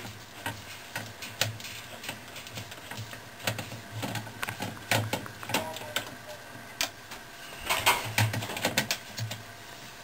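Ratcheting socket tool clicking in short, irregular runs as it loosens the agitator hold-down bolt deep inside a top-loading washer's agitator, with small knocks of the tool against the plastic barrel; the clicking is busiest near the end.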